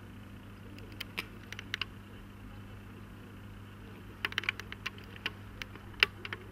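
Scottish Fold cat smacking and licking its lips after a yawn: small wet mouth clicks in two quick clusters, a few about a second in and a denser run in the second half, the loudest near the end. A steady low hum lies underneath.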